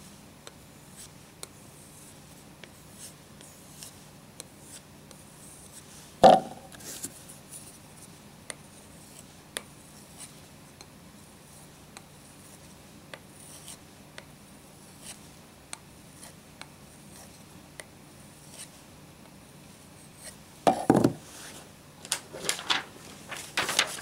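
Knife blade being stropped and honed by hand: light, regular rubbing strokes of the steel over a strop and a sharpening stone. A sharp knock about six seconds in, and louder handling noises near the end.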